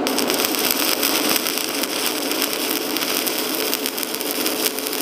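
Stick-welding arc from a covered electrode on an inverter welder, crackling steadily as a bead is run around a pipe joint.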